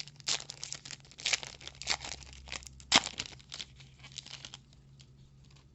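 Foil Magic: The Gathering booster pack wrapper being torn open and crinkled: a run of crackling rips, the sharpest about three seconds in, dying away near the end.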